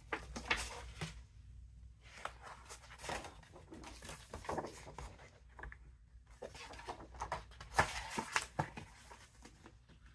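Paper dust jacket of a hardcover book rustling and crackling as the book is handled and the jacket pulled back from the cover. It comes in three spells of handling noise with soft scrapes and taps.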